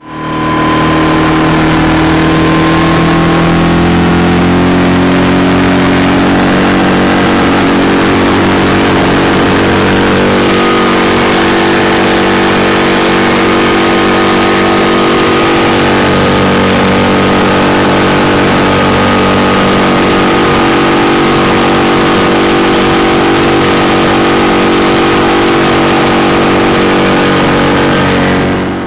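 Mercury 6 four-stroke outboard motor running at high throttle, pushing a two-up 3.6 m boat on the plane, over a steady rush of water and wind. Its pitch eases down slightly in the first few seconds, then holds steady.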